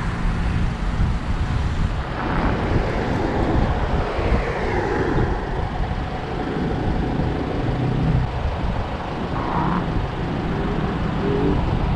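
Road traffic on a seaside road: a steady rumble and hiss of cars passing, swelling and fading as several vehicles go by.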